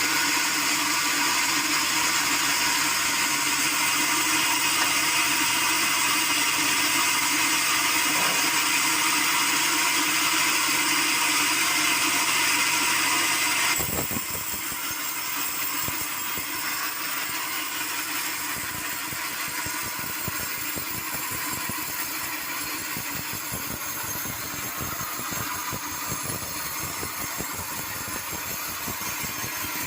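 Sawmill machinery running steadily with a harsh, high hiss. About 14 seconds in it drops suddenly to a quieter level and runs on.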